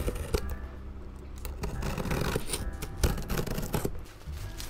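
A blade slitting the packing tape along a cardboard box, then the box flaps being pulled open: scraping and cardboard rustling, with a couple of sharp knocks.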